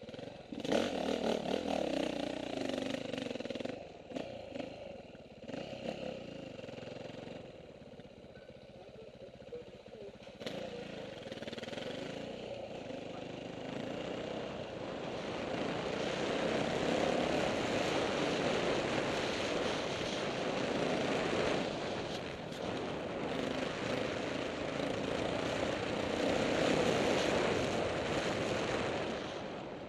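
KTM 450 XC-W dirt bike's single-cylinder four-stroke engine being ridden hard, the revs rising and falling with the throttle. It runs loud at the start, quieter for a while, then louder again over the second half.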